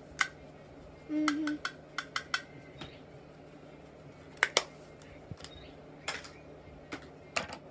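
Scattered sharp clicks and clacks of plastic makeup compacts and containers being handled and set down, a few close together about two seconds in and a louder pair a little past the middle. A short hummed voice sound about a second in.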